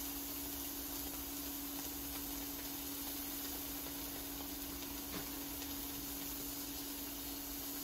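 Beef slices sizzling in a frying pan on an induction cooktop: a steady hiss with faint crackles, over a steady low hum, and a light click of metal tongs about five seconds in.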